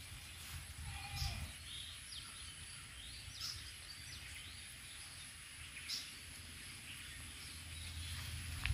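Birds chirping in short, scattered calls over a low rumble and a faint steady high hiss.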